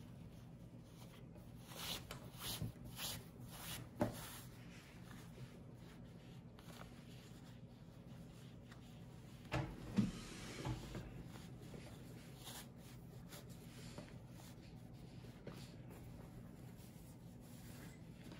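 Fabric strips rustling and rubbing as they are pulled through the loops of an Amish knot rag rug, with a few light knocks in two clusters, about two to four seconds in and again about ten seconds in.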